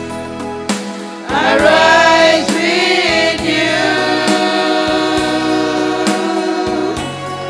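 A small group of voices singing a gospel song together over backing music. The voices come in about a second in and settle into long held notes.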